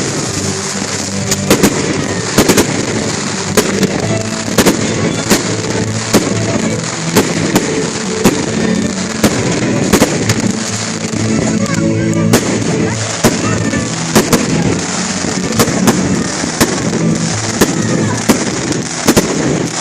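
Fireworks going off in quick irregular succession, many sharp bangs and crackles, with music playing underneath.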